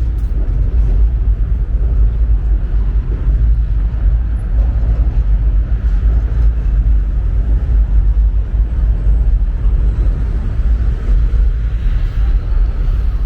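Steady low outdoor rumble of the city at street level, heavy in the bass and fluctuating constantly, with a faint thin high tone near the end.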